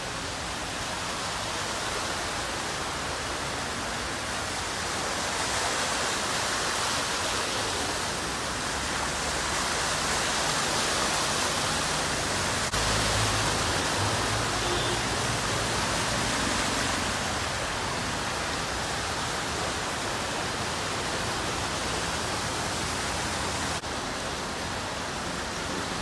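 Steady rushing hiss of floodwater running across a street, with cars and a motorcycle driving through the water and throwing up splashes. A low engine sound rises briefly about halfway through.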